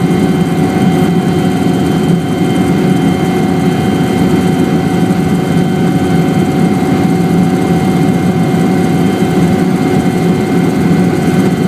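Helicopter in flight: a steady, loud drone of turbine engine and rotors, with several constant whining tones over it.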